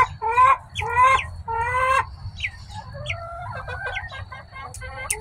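Young chickens calling: three drawn-out, slightly rising calls in the first two seconds, then a few short chirps and a run of quick soft clucks about three to four seconds in. A couple of sharp clicks near the end.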